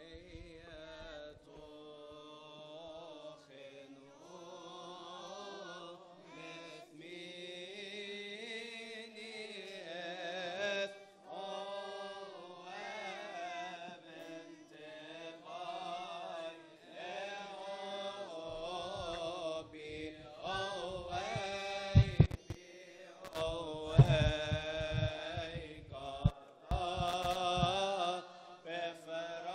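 Coptic Orthodox liturgical chant: voices singing a slow, drawn-out hymn line. A few low thumps come about three-quarters of the way through.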